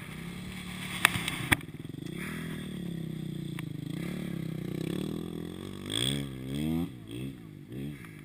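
Dirt bike engines running on the trail, their pitch rising and falling with the throttle, with several quick revs near the end. Two sharp clicks come about a second in.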